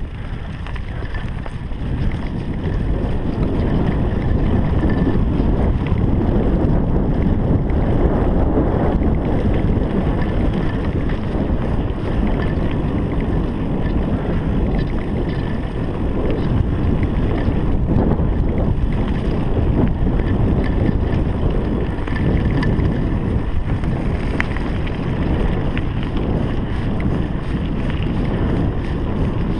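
Steady wind rush on an action camera's microphone, mixed with the rumble of a mountain bike's tyres rolling over a dirt trail. The noise picks up a little about two seconds in.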